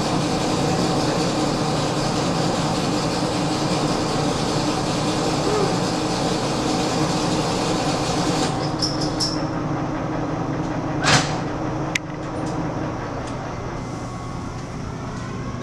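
Monarch engine lathe taking a heavy 0.200-inch roughing cut on steel bar stock: the spindle and gearing run with a steady hum under the hiss of the tool cutting. About eight and a half seconds in the cutting hiss stops as the cut ends. Two sharp clacks follow a few seconds later as the lathe's controls are worked, and the machine then runs on more quietly.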